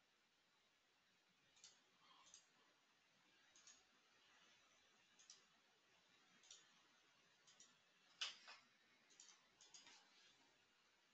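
Faint computer mouse clicks: about a dozen short, irregular clicks, the loudest one a little past the middle.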